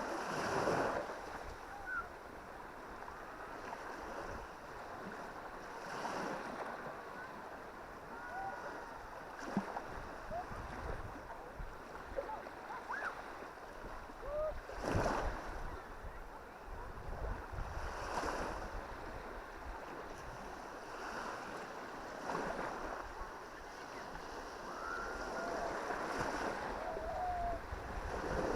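Baltic Sea waves breaking and washing onto a sandy beach, the surf rising in a surge every few seconds over a steady rush of wind. Faint short whistled calls sound now and then over the surf.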